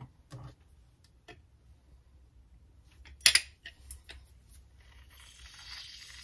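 A fresh lime being squeezed by hand over a glass of crushed ice. There are a few light clicks of handling and a sharp knock about three seconds in, then a soft, steady squeezing noise as the juice comes out, starting about five seconds in.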